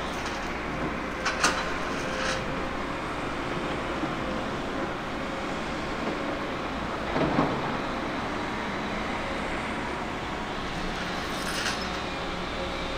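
Liebherr 924 crawler excavator's diesel engine running steadily, with a truck engine alongside. There are two sharp clanks in the first couple of seconds, and a short rumbling thud about seven seconds in as a bucket of sand is dumped into the truck bed.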